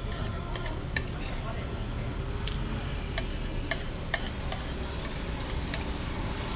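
Metal spoon scraping and clinking against a plate as the last rice is scooped off it, a series of irregular clinks over a steady low background rumble.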